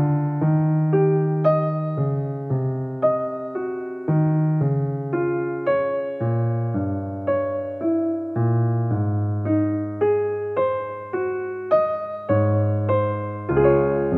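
Background piano music: a melody of struck notes, each fading away, over lower bass notes.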